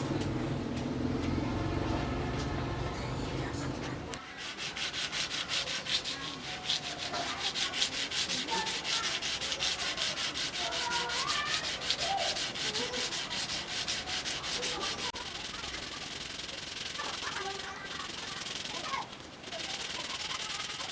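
A machine hum for the first four seconds, cutting off abruptly. Then fast, rhythmic abrasive rubbing, like sanding a small knife blade by hand, which eases off in the last few seconds.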